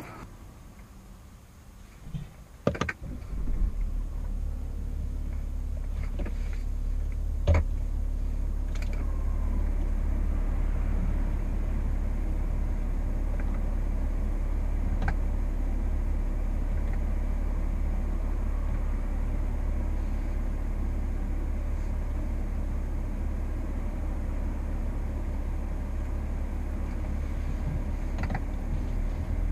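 BMW 740d's straight-six turbodiesel idling at a standstill, heard from inside the cabin as a steady low drone, with a few light clicks from the cabin over it.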